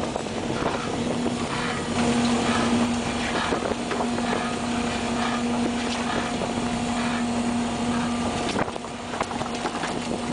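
Crab fishing boat's engine and deck machinery running with a steady hum over a wash of wind and water noise on deck. The hum breaks off briefly about eight and a half seconds in.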